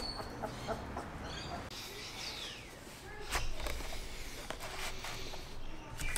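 Three-week-old German Wirehaired Pointer puppy giving a few short high squeaks and a falling whine while being handled in a plastic tub on a kitchen scale, with a sharp knock of the tub about halfway through.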